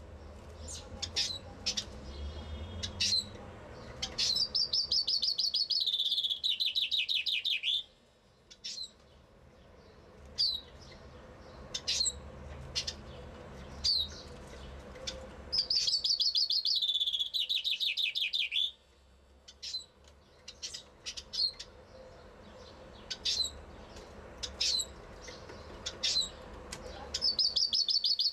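Common chaffinch (Fringilla coelebs) singing: three song phrases about 12 seconds apart, each a fast trill that drops in pitch as it goes, the last one starting near the end. Short single chirps come in between the phrases.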